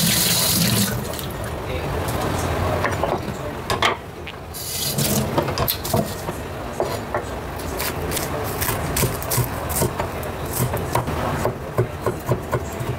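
Tap water running briefly at the start, then a steel Chinese cleaver chopping spring onions and chilli on an end-grain wooden chopping board: a quick, steady run of knocks, several a second, from about five seconds in.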